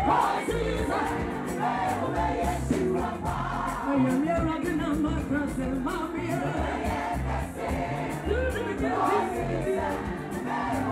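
Live gospel music: a woman singing lead into a microphone, with backing vocals and a band playing a steady beat underneath, through a PA system.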